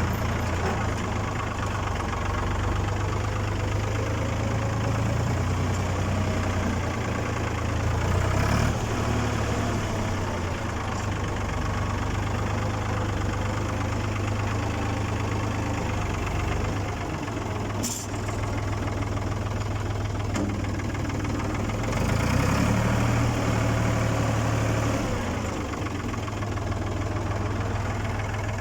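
Ford 4000 tractor engine running steadily under load while pulling a plough, its note shifting a little now and then. There is a single sharp click about two-thirds of the way through.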